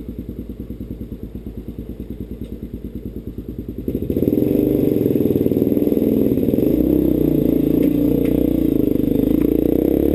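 Motorcycle engine idling with an even putter, then running louder and harder from about four seconds in.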